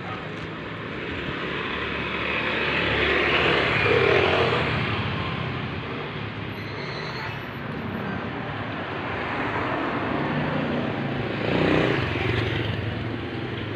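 Street traffic going past: motor vehicles on the road, the noise swelling as one passes about four seconds in and again near the end.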